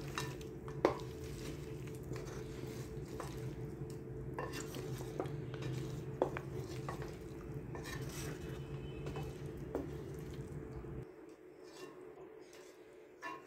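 A wooden spatula stirring chicken and tomatoes in a metal pot, scraping and knocking against the pot's sides every second or so. A steady low hum runs underneath and drops away about eleven seconds in.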